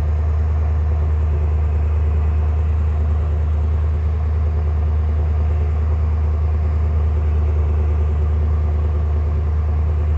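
Car engine idling steadily, heard right at the exhaust pipe.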